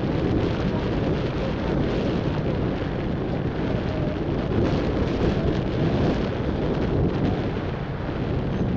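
Wind buffeting the microphone: a loud, steady rushing rumble with no clear engine note.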